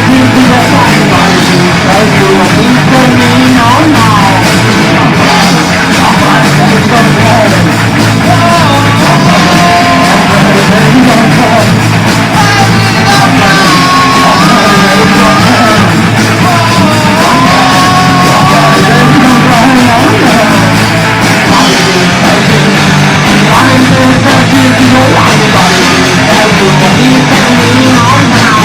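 Punk rock band demo recording playing loud and dense: a full band mix with a melodic line held and wavering over it through the middle.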